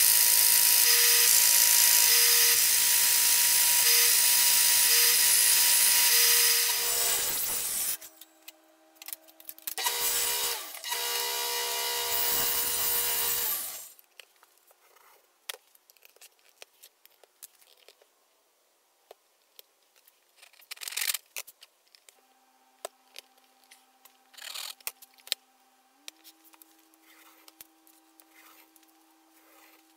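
Delta benchtop belt sander running, with the end of a cedar box pressed against the belt and sanded. The sanding stops abruptly about eight seconds in, returns briefly, then gives way to quiet small taps and clicks of hands handling the wood.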